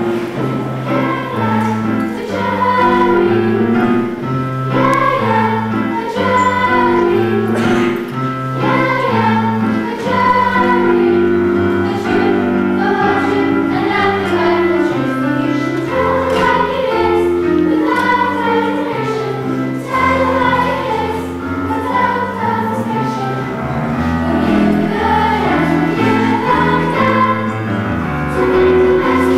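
A choir singing a song with instrumental accompaniment, the voices carrying the tune over a stepping bass line.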